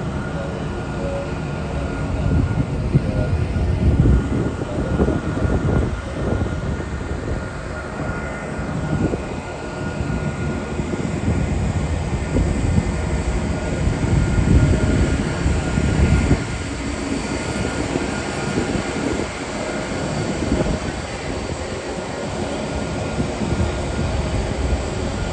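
Jet airliner engines running at an airport, a loud rumble that swells and eases over the seconds, with a faint steady whine above it.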